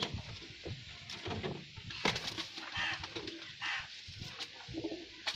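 Domestic pigeons in a loft cooing, a few short repeated coos, with soft rustling and clicks from a pigeon being handled.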